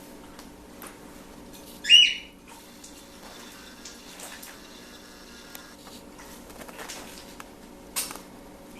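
A single short, loud parrot squawk about two seconds in, over faint scattered splashes and clicks from the birds bathing and a steady low hum.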